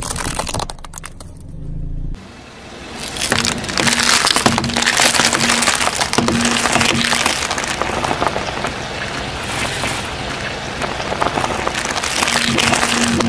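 A car tyre rolling slowly over raw eggs in a cardboard carton: a long, dense run of cracking and crunching eggshells that starts about two to three seconds in. It follows a low steady hum.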